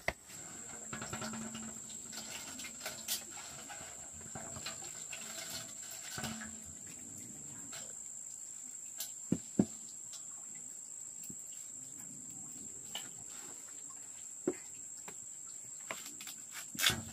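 A steady, high-pitched insect drone, with scattered short clicks and knocks from handling things nearby.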